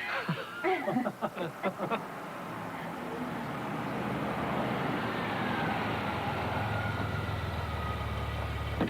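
A motor vehicle running: a steady rush of engine and road noise that builds up after the first couple of seconds, with a low engine hum growing stronger in the second half.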